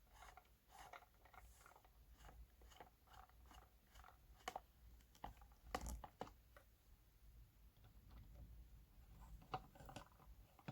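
Faint, scattered clicks and light knocks from small parts being handled while screws go back into a speaker cabinet.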